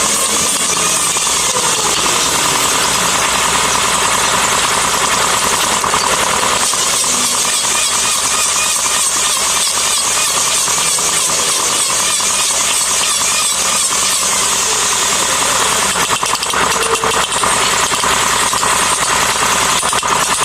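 A handheld power tool running continuously on wood, a loud, steady, harsh noise.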